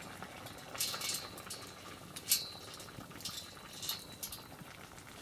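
A few short scrapes and clinks of a metal utensil against a cooking pot, some leaving a brief ring, over a soft steady simmering hiss.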